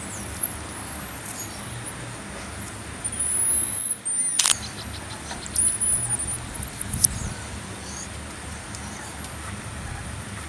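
Marmosets giving thin, very high-pitched whistling calls, a few short gliding whistles, over a steady low rumble. A sharp click about four and a half seconds in is followed by a quick run of fading ticks, and another click comes near seven seconds.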